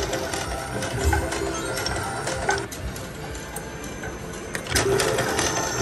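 Three-reel slot machine spinning its reels: a fast, even whirring rattle, with short electronic chimes over it. It grows louder near the end as the next spin begins.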